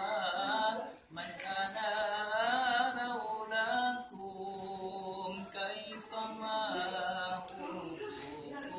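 A man singing an Arabic devotional song (sholawat) unaccompanied, in long wavering, ornamented phrases, with a short breath pause about a second in.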